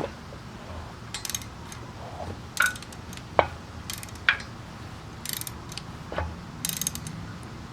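Subaru EJ25 flat-four turned over slowly by hand, giving sharp metallic clacks and knocks about once a second, unevenly spaced: a connecting rod knocking in a bearing that is worn away.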